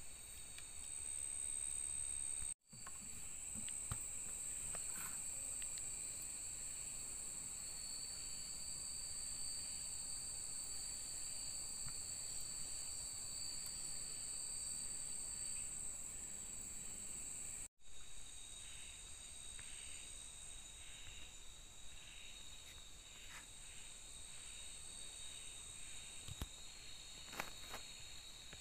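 Night-time insect chorus: steady, high-pitched trilling in several layers. It cuts out for a moment twice, and a few faint ticks come through in the second half.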